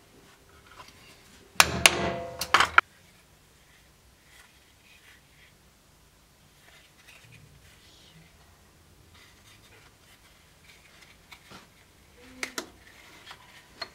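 Four sharp strikes within about a second, a couple of seconds in: a mallet driving a multi-prong leather stitching chisel through thick leather to punch stitch holes. After them, only faint handling clicks.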